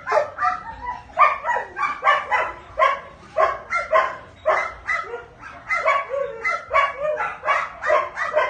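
Belgian Malinois barking in a rapid, steady run of short, high barks, about two to three a second.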